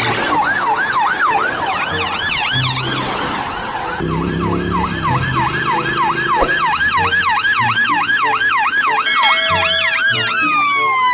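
Electronic police siren in a fast yelp, its pitch sweeping up and down about three times a second. Near the end the yelp breaks off into a long falling tone.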